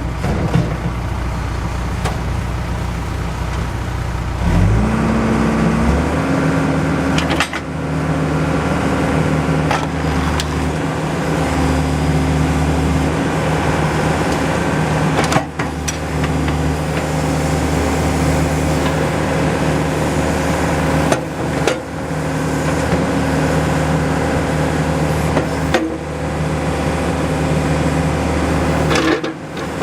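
John Deere 310SG backhoe loader's diesel engine running. About four and a half seconds in it revs up from idle to a higher steady speed and holds there, with a few abrupt short breaks in the sound.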